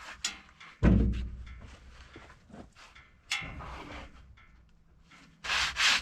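A heavy freshly sawn spalted maple slab being turned over and dropped down with one loud wooden thump about a second in, then a smaller knock. Near the end, brisk rubbing strokes across the wood surface as sawdust is brushed off.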